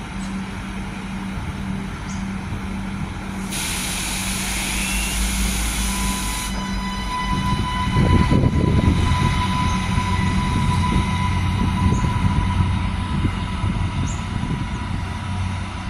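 Adelaide Metro 3000-class diesel railcar set pulling away from a station, its engines running with a steady note that drops in pitch and gets louder and rumbling about eight seconds in. A burst of hissing comes about four seconds in, and a steady high tone runs from about seven seconds on.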